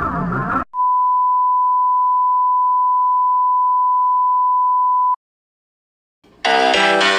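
A steady high-pitched beep: the test tone that goes with TV colour bars. It holds for about four and a half seconds and cuts off abruptly. Music plays briefly before it, and keyboard music starts near the end after a second of silence.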